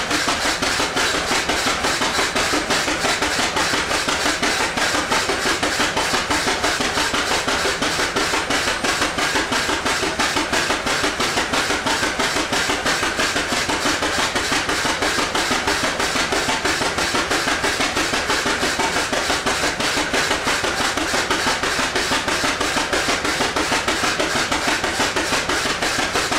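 1917 Avery tractor engine running hard under heavy load on the belt pulley, its exhaust firing in a rapid, even beat, about four knocks a second.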